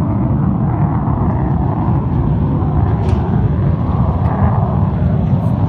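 Steady, loud roar of a military jet aircraft's engines flying at an air show.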